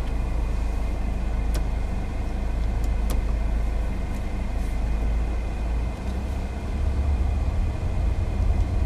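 Car cabin noise while driving: a steady low rumble of engine and road noise heard from inside the car, growing louder about two-thirds of the way through, with a couple of faint ticks.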